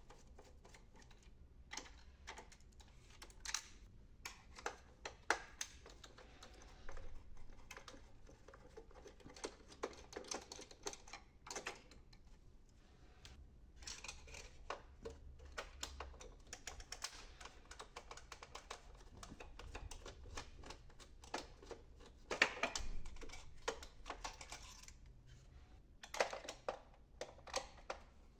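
Small screwdriver turning screws out of an HP Officejet 6500 inkjet printer's plastic frame, with irregular light clicks and taps of metal on plastic as the parts are handled.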